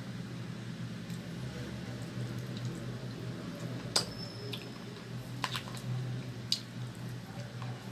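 Close-miked eating of chicken: a few sharp mouth and utensil clicks, the loudest about four seconds in with a brief ring like cutlery touching a plate, over a steady low hum.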